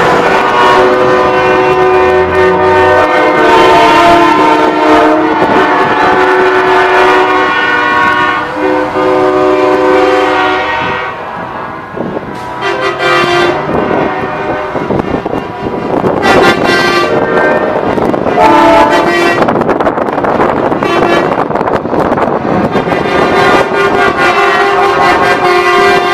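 Semi trucks sounding their air horns as they pass, long loud chord-like blasts one after another, then a brief lull about eleven seconds in followed by shorter repeated honks.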